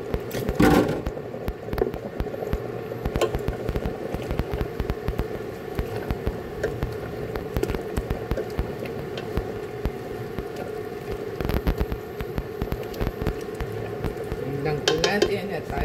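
A spoon stirring vegetables and broth in a stainless steel pot, making irregular knocks and scrapes against the pot, over a steady hum.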